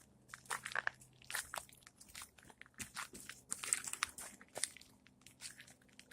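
Irregular dry crunching and crackling: a scatter of short crackles, thickest about three and a half to four seconds in, over a faint steady low hum.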